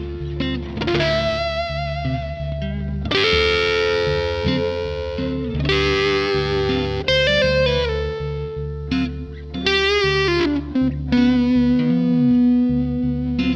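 Electric guitar played through a fuzz effect: a run of sustained, distorted single notes, many bent or held with a wavering vibrato, over a steady low bass tone.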